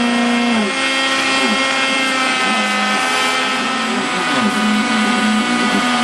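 Homemade CNC router carving a 3D relief: the spindle runs with a steady high whine while the stepper motors driving the axes hum underneath, their pitch jumping and gliding every second or so as the tool changes direction and speed.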